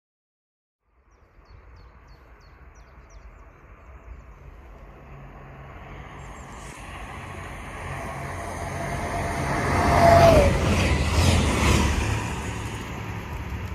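DSB IC3 diesel multiple unit approaching and running through the station without stopping. The rumble builds steadily to a peak about ten seconds in as it passes, with a tone dropping in pitch, then eases off.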